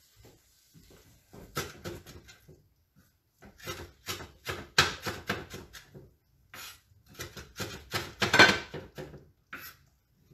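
Kitchen knife chopping flat-leaf parsley on a wooden cutting board, in three runs of quick strokes with short pauses between them.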